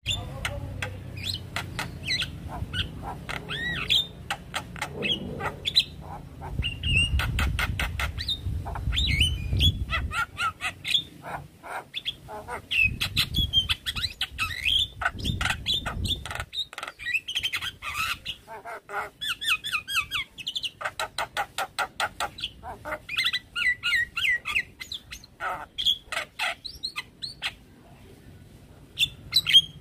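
Javan myna singing a long, varied song of rapid clicking chatter and short whistled notes, full of mimicked phrases.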